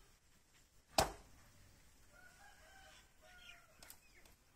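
A single sharp knock about a second in, then a drawn-out bird call, likely a rooster crowing, held for about a second in the background.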